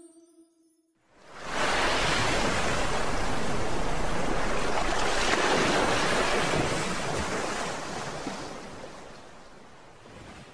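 Rushing sea-surf noise that swells in about a second in, holds steady for several seconds, then slowly fades out toward the end.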